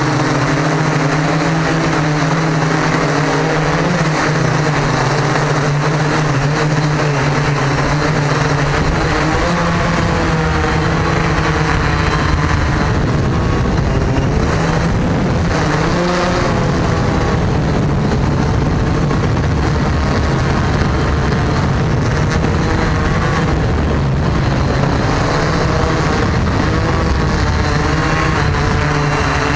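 A multirotor drone's electric motors and propellers buzzing steadily, picked up by its onboard camera. The pitch wavers as the motors speed up and slow down, and a low rumble joins about nine seconds in.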